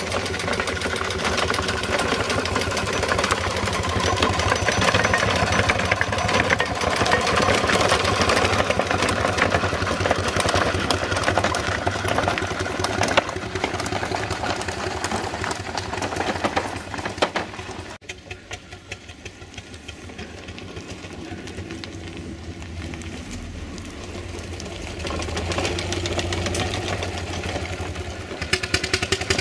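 Small ride-on steam traction engine running under way, with a fast, steady beat of exhaust and motion work. It drops in loudness suddenly about two-thirds through, then builds again near the end.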